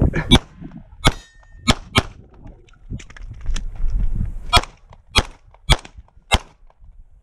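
Glock 17 MOS 9mm pistol firing a string of about nine shots at close range, irregularly spaced and some about half a second apart. The shot about a second in is followed by a brief high ring.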